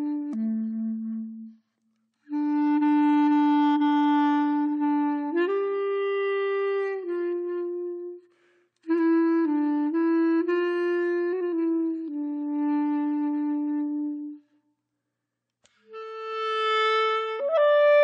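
Background music: a slow solo melody of long held notes on a single wind-like instrument, in phrases separated by brief pauses.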